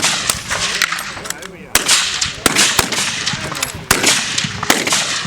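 Rifle shots on a firing line: four loud, sharp cracks spaced roughly a second apart, with fainter shots between them. Among them is the muzzle blast of a k98k Mauser in 7.92×57mm.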